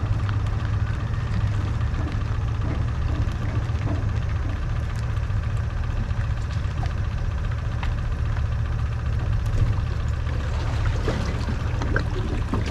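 The tow vehicle's engine runs with a steady low rumble, heard from the trailered boat behind it, with scattered light clicks and rattles.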